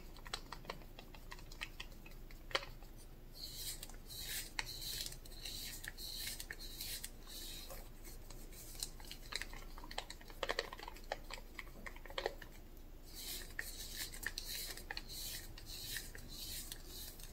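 Wooden craft stick stirring acrylic paint mix in a small plastic cup, clicking and scraping against the cup's sides. Two longer spells of quick, rapid scraping strokes stand out, a few seconds in and again past the middle.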